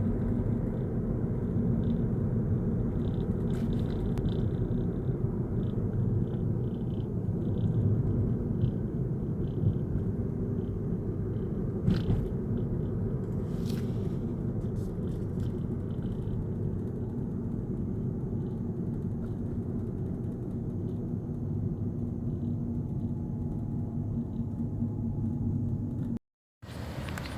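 An engine running steadily with a low rumble and a constant hum, with a few faint clicks over it; the sound cuts out briefly about a second before the end.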